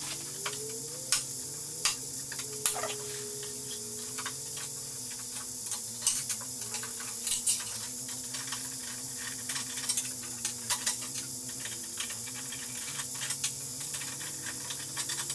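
Irregular small metallic clicks and taps as screws holding a bearing housing to a 3D printer's Y-axis table are worked loose by hand, over a steady hiss and faint hum.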